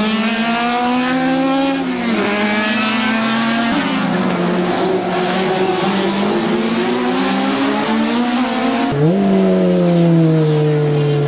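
Racing car engine accelerating hard through the gears, its pitch climbing and dropping at each upshift. Near the end it cuts to another engine note, which falls away.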